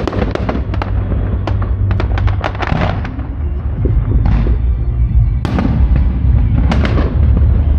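Aerial firework shells bursting: a rapid run of sharp crackling reports in the first three seconds, then single heavier bangs spaced about a second apart, over a steady low rumble.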